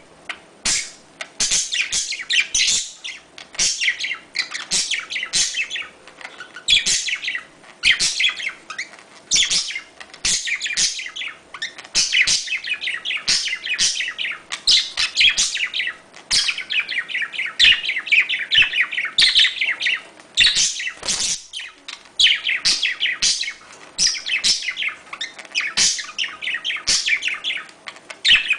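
Budgerigars chirping and chattering in rapid, high warbling bursts with brief gaps: budgie courtship chatter.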